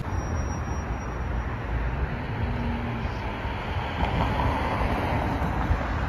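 Street traffic noise from cars driving along a town road, with low wind rumble on the microphone; the traffic sound swells briefly about four seconds in.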